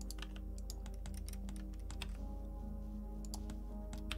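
Computer keyboard keys clicking irregularly as shortcuts are typed, over quiet sustained background music.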